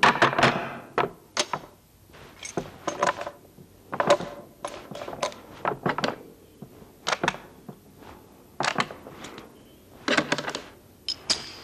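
A series of irregular sharp knocks and clatters, about twenty in all, like hard objects being struck or set down.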